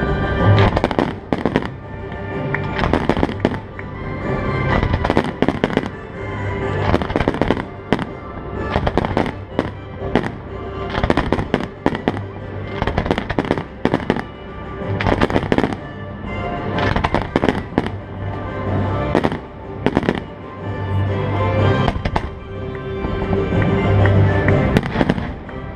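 Fireworks display with aerial shells bursting in rapid succession, many sharp bangs a second, over music of the pyromusical show.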